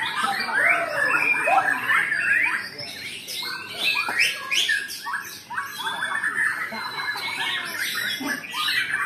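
Several caged white-rumped shamas (murai batu) singing at once in a contest round: a dense, unbroken overlap of rapid whistled phrases and sweeping chirps.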